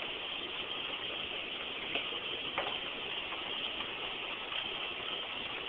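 Steady mechanical din of newspaper-handling machinery, with a few faint clicks, the clearest about two and a half seconds in.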